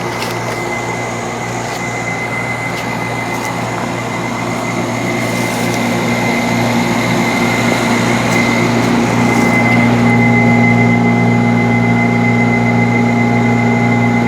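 1982 York heat pump running in heating mode: a steady compressor hum and fan noise with a thin high whine, growing a little louder over the first ten seconds.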